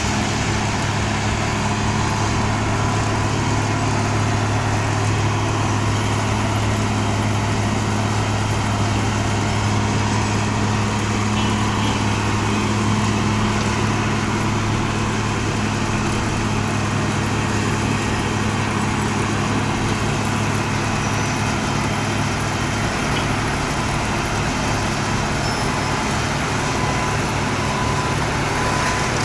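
Heavy road-repair machinery running steadily: a constant low engine hum under a dense, even noisy wash, with no break or change in level.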